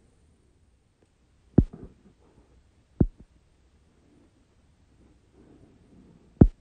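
Three sudden low thumps, the second about a second and a half after the first and the third about three and a half seconds later.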